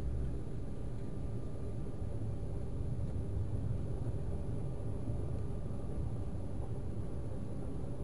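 Steady low rumble heard inside the cabin of an Embraer jet taxiing, its engines running at taxi power, with a faint steady whine on top.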